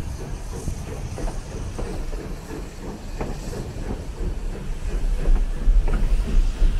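Narrow-gauge train running on the rails: irregular wheel clicks over a steady low rumble, growing louder near the end.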